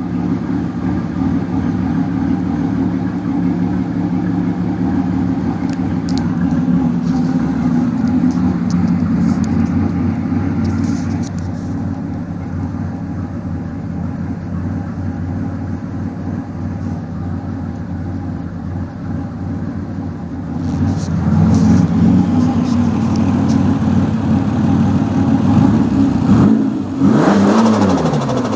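Turbocharged 3.8-litre V6 of a 1998 Pontiac Grand Prix GTP, fitted with a T67 turbo, idling steadily. It runs louder from about two-thirds of the way in and is revved up and down near the end. The turbo has a compressor surge problem, and the engine is running on an early start-up before the air-fuel ratios are dialed in.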